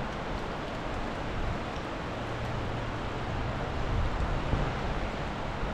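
Steady rush of a river in flood, with wind buffeting the microphone in low gusts. A faint low hum joins in about two seconds in.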